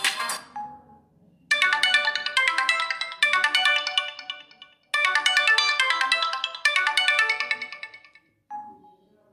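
Samsung GT-S3600 mobile phone ringtone: the tail of one tune fades out, then after a short gap a melodic electronic tune of quick notes plays its phrase twice, with a brief note near the end.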